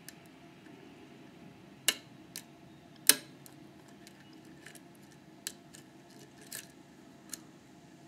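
Lock picking on a Metal X6V pin-tumbler cylinder: a hook pick and tension wrench working the pins, giving scattered sharp metallic clicks and ticks, about seven, with the loudest a little after three seconds in.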